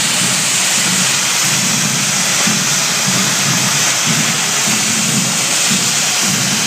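Several hand-held firework fountains burning together on a correfoc devil's frame: a loud, steady, rushing hiss of spraying sparks.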